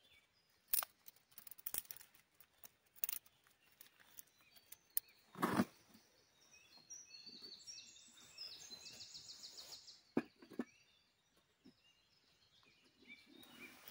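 A songbird singing a phrase of chirps that ends in a fast, even trill, with more short calls near the end. A few sharp wood snaps come in between, the loudest about five seconds in.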